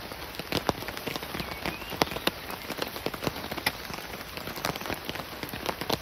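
Steady rain falling, an even hiss with many sharp drop-ticks landing close by at irregular moments.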